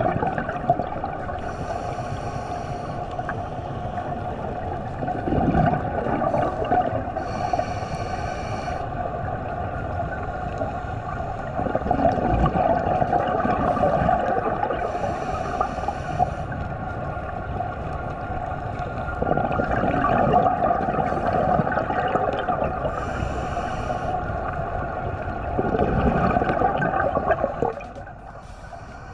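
Scuba diver breathing underwater through a regulator: slow breath cycles of gurgling exhaled bubbles, about one breath every seven seconds.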